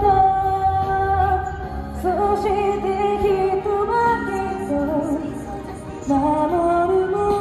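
A woman singing a slow song into a microphone, amplified, with long held notes that slide between pitches over a quiet backing accompaniment.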